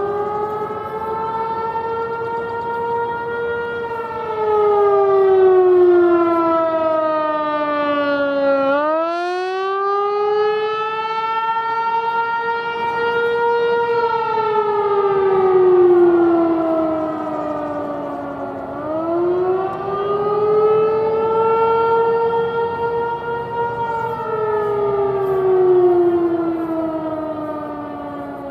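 Federal Signal 508-128 dual-tone rotating electromechanical warning siren sounding the Attack signal: its two-note chord winds up, holds, and winds down in slow wails about every ten seconds, three times. The sound swells and fades as the rotating head turns toward and away.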